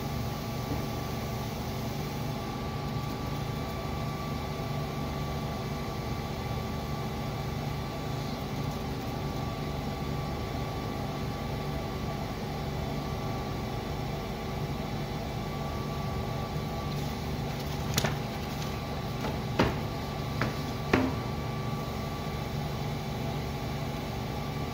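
Seypa 92 PMC paper guillotine running idle with a steady motor hum, between cuts. Four sharp knocks come close together about three-quarters of the way through.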